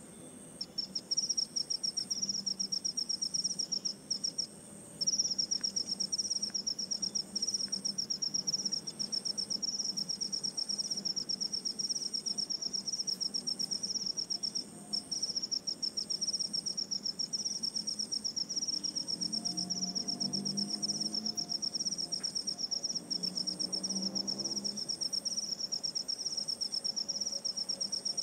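Insects trilling in a steady high, continuous chirr that breaks off briefly a few times. Behind it, a second, higher insect call switches on and off about once a second.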